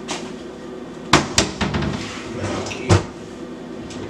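Three sharp knocks or bangs: two close together a little over a second in, and a louder one near three seconds in.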